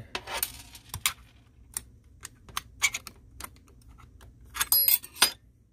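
Sharp metal clicks and clinks of an Arrow T50P staple gun's steel body and side cover being handled and fitted back together. The clicks come irregularly, with a quick cluster near the end that rings briefly.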